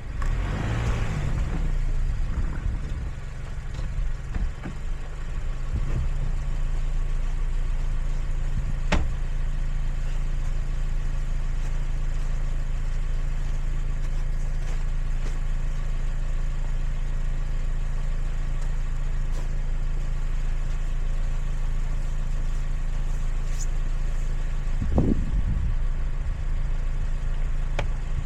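A car engine running with a steady low hum, with one sharp click about nine seconds in.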